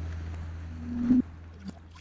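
Sound effect for an animated logo: a low hum slowly fading, a short swelling tone that cuts off sharply about a second in, and a couple of soft blips near the end.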